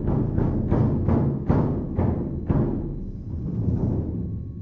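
Large vintage bass drums with calfskin heads struck with mallets in a run of deep, booming beats, about two to three a second. The beats space out and the boom dies away near the end.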